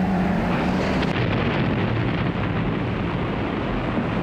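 Propeller aircraft engine drone, joined about a second in by a heavy, steady rumble of explosions.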